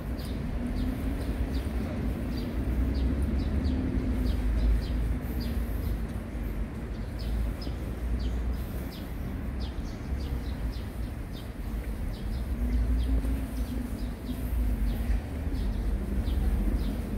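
City street ambience: a steady low traffic rumble, with the engine hum of passing vehicles swelling twice, and a run of short high-pitched ticks throughout.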